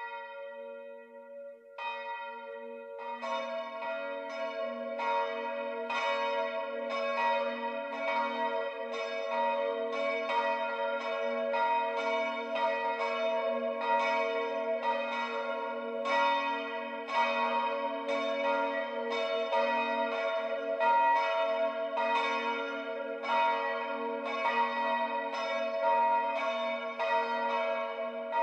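Church bells ringing. Strokes come in one after another over the first three seconds, then a steady peal of about two strokes a second, each stroke ringing on over the next.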